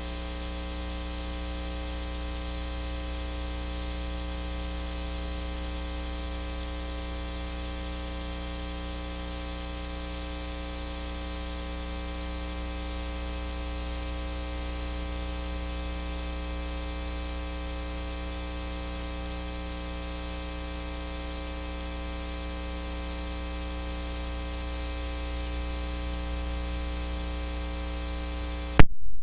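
Steady electrical buzz and mains hum in the audio feed, caused by a faulty box in the sound chain, which was later found to be the culprit. Near the end the buzz cuts off suddenly with a loud pop as the connection is broken.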